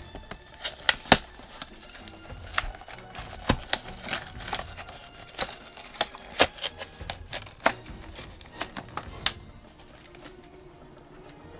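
Clear plastic blister bubble of a carded action figure being pried and peeled off its cardboard backing, giving irregular sharp crackles and snaps of the stiff plastic.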